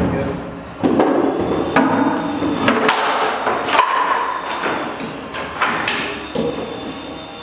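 Particleboard panels and sheet-metal furniture pieces knocking and clattering against each other and the concrete floor as they are handled and set in place: a string of hollow knocks, one with a brief metallic ring about four seconds in.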